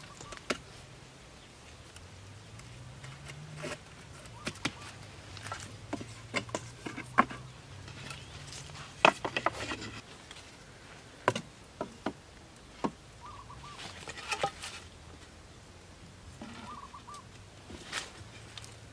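Wooden poles knocking and clattering while a pole frame is handled and lashed together: about a dozen sharp knocks at irregular intervals, loudest near the middle, over a faint low hum. Short high chirps come in twice in the second half.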